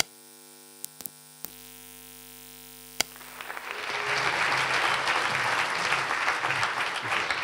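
A steady hum of several low tones, broken by a few sharp clicks, for about three seconds. Then audience applause swells up and carries on to the end.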